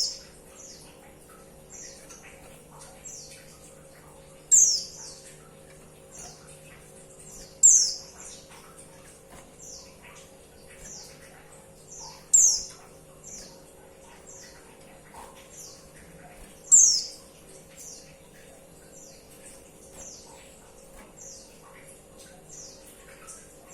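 Female white-eye (pleci) calling: a steady series of short, high, downward-slurred chirps, one roughly every half to three-quarters of a second, with four louder calls among them. A faint steady hum lies underneath.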